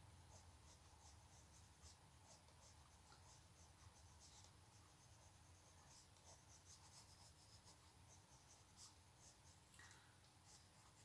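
Very faint scratching of a drawing tool on paper, in many quick short strokes, as lines are drawn over a watercolour painting.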